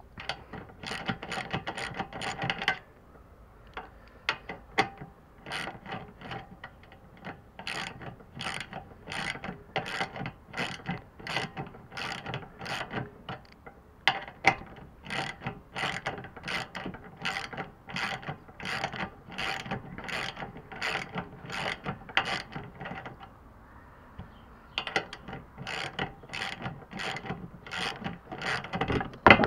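Hand ratchet wrench with a socket clicking in runs, about two clicks a second, as it backs out a luggage-rack bolt, with short pauses between runs.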